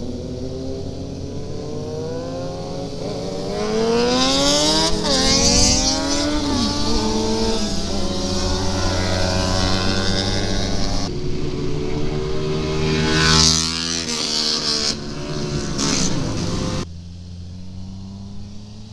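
Sport motorcycle engines accelerating, the revs climbing twice through the gears, with wind rushing over the microphone. The engine noise drops off near the end as the bike slows.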